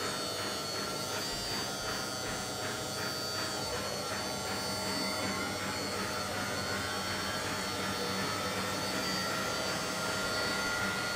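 Hydraulic pump motor of an RC Caterpillar M322D model excavator running with a steady electric buzz and whine while the boom lifts, its tone rising slightly about halfway through.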